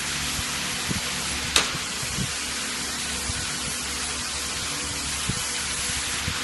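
Steady hiss with a faint machine hum from a pneumatic muffin cup forming machine, broken by a few sharp clicks, the loudest about a second and a half in.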